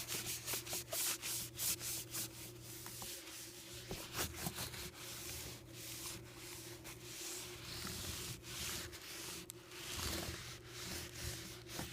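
Paper towel damp with degreaser scrubbing a MacBook's casing in quick back-and-forth strokes, a dry rubbing sound.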